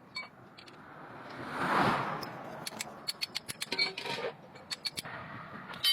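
Metal clinking and tapping: a quick run of sharp clicks and light strikes on metal, some ringing briefly, after a short swelling rush of hiss about two seconds in.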